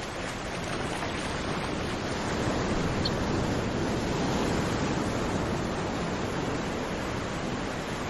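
Steady rush of shallow water running over pebbles, swelling slightly midway, with one faint brief high note about three seconds in.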